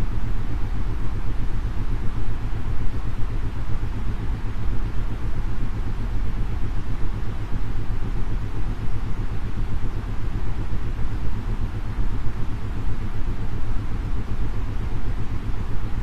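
Synthesized noise weighted towards the low end, heard as a steady rumbling hiss. It is overlaid with isochronic tones: a low tone switched on and off several times a second as a brainwave-entrainment beat.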